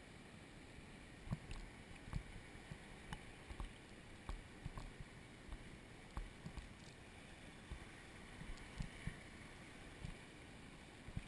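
Kayak being paddled: irregular knocks and splashes as the paddle dips and touches the boat, over a steady faint hiss of water.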